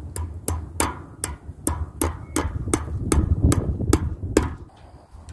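Hammer tapping a fence staple into a wooden fence post to hold woven wire: about a dozen sharp, even strikes, roughly three a second, that stop near the end.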